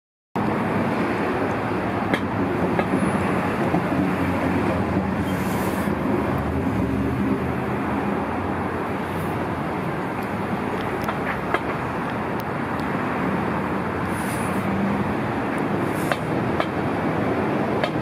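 Steady city street traffic noise: a continuous rumble and hiss of passing cars, with a few faint clicks.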